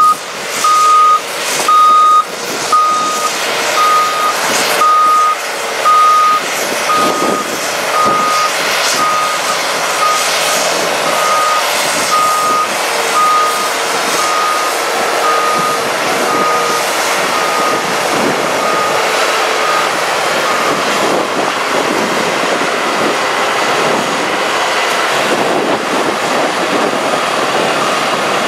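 A heavy truck's reversing alarm beeping steadily about once a second over the running diesel engine. The beeps grow fainter and fade out about two-thirds of the way through, while the engine noise carries on.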